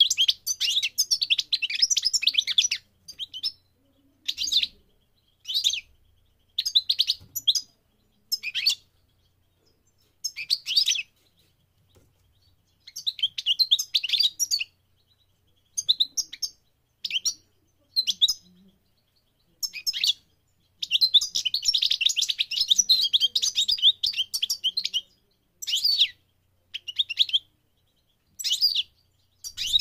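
European goldfinch singing: phrases of rapid, high chirps and trills with short pauses between them. There is a long unbroken run at the start and another past the middle.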